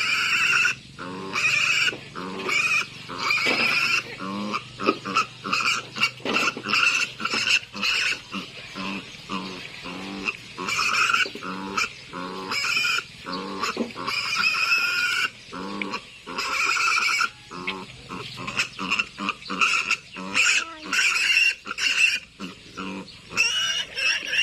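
Piglets squealing loudly over and over, high shrill squeals each lasting up to about a second, coming one after another with short gaps, as piglets do when caught and held for castration.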